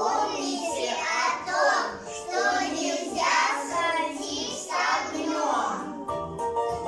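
Young children singing a song together over a recorded backing track; the singing stops about six seconds in and the instrumental music, with a guitar-like plucked part, carries on.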